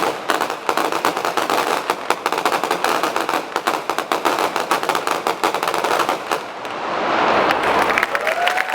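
Feu de joie: blank rifle shots rippling down the ranks in a rapid, uneven crackle, shot after shot. It stops about six and a half seconds in, and crowd applause swells near the end.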